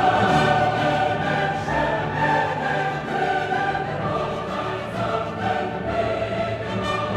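Choral music: a choir singing held chords.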